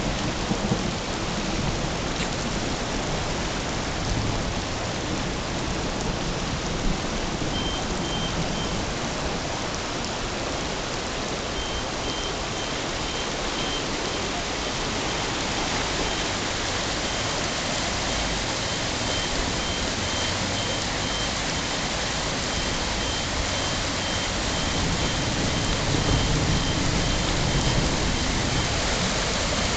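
Heavy rain pouring steadily onto a flooded street. From several seconds in, a high electronic beep repeats about once a second.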